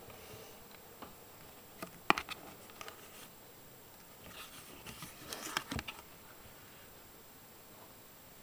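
Hands handling and turning a stiff page of a shaped children's book: a sharp click about two seconds in, then a cluster of taps and rustles around the fifth second.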